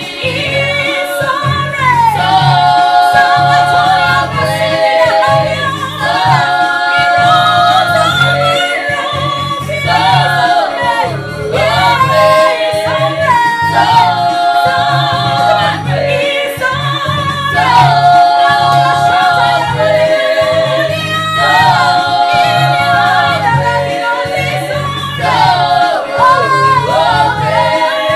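Small gospel choir of mostly women's voices singing a worship song in harmony, phrase after phrase, over sustained low keyboard notes.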